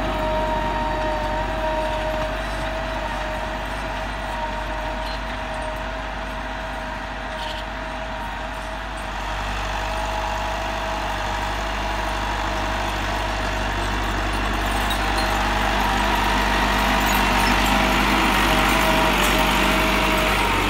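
Massey Ferguson 385 tractor's four-cylinder diesel engine running steadily under load while pulling a tine cultivator through soil, with a steady whine over the engine note. It grows louder over the last few seconds.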